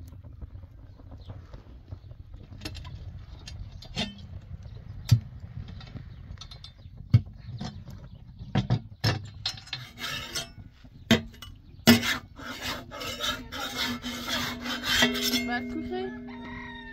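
Domed iron flatbread griddle and firewood being handled on a stone hearth: a run of knocks and clatters, then a few seconds of scraping about three-quarters of the way through.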